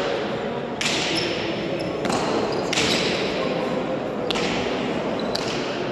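Hard pelota ball being struck bare-handed and smacking off the fronton walls during a rally: about five sharp cracks a second or so apart, each ringing in the large hall.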